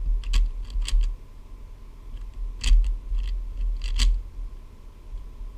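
YJ Guanlong speedcube being turned by hand: irregular plastic clicks as its layers snap round, in short clusters with brief pauses between.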